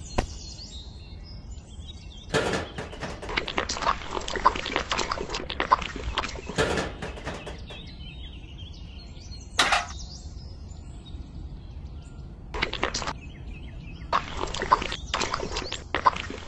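Handling of a miniature concrete mixer and a small bucket: gritty scraping as wet cement is tipped into the bucket and later turned out of it onto a plastic tray, with a sharp knock near the start and another midway.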